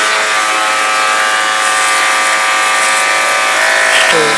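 A 12-volt DC motorcycle-wash pump runs steadily with a pitched whine, over the hiss of its water jet spraying from a spray gun onto a motorcycle. The pump's pitch shifts a little just before the end.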